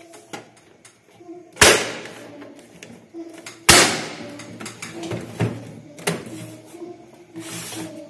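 Plastic casing of an APC Back-UPS being handled and refitted: two loud, sharp plastic clacks about two seconds apart, then lighter knocks and a brief scrape as the unit is turned over.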